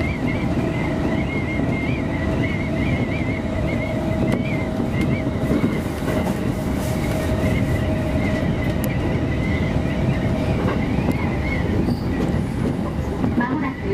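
Electric commuter train running on the JR Musashino Line, heard from the front car: a steady rumble of wheels on rail. Over the rumble runs a steady whine that stops about ten seconds in, and a thin, high, wavering tone above it.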